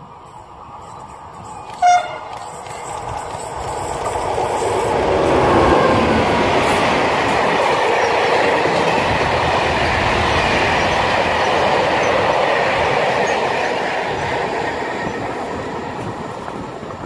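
Freight train of covered wagons passing at speed under the catenary. There is a short horn blast about two seconds in, then the rumble and clatter of the wagons on the rails builds, holds and fades away near the end.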